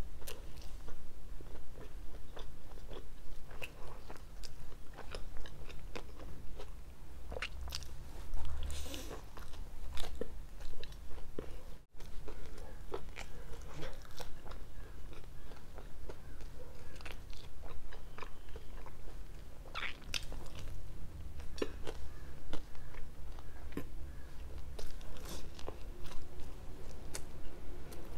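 Close-miked biting and chewing of a pizza slice, with irregular sharp crunches of the crust between softer chewing sounds.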